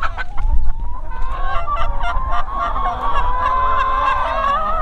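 A large flock of red laying hens calling all at once: a continuous chorus of many overlapping, drawn-out squawks and clucks.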